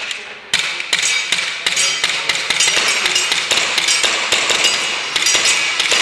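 Gas blowback airsoft pistols firing fast, a dense irregular string of sharp cracks and clacks that starts about half a second in.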